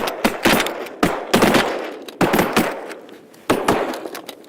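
A rapid volley of shotgun fire from several hunters shooting at incoming eider ducks, about eight sharp shots in quick succession, some nearly overlapping, each trailing off in a long echo.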